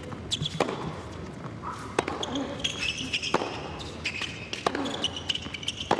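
Tennis rally on a hard court: five sharp racket strikes on the ball about every second and a quarter, with short high shoe squeaks between them.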